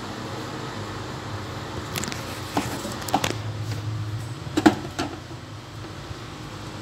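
Scattered clicks and knocks of a stainless-steel mixer-grinder jar and its plastic lid being handled and set onto the motor base, the loudest knock about two-thirds of the way through. The motor is not running.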